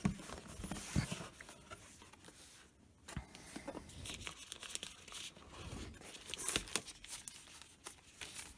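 Cardboard box lid lifted off and a router in a thin plastic film bag taken out, the plastic crinkling and rustling amid light knocks of cardboard. A short quiet spell comes just before the middle.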